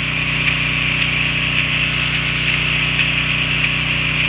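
Pressure washer's engine and pump running steadily, with a constant hiss of water spraying.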